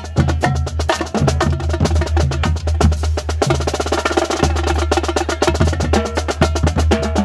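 High school marching drumline playing: marching bass drums, snares and tenors beating a dense, steady rhythm, with sharp stick clicks over a constant deep drum boom.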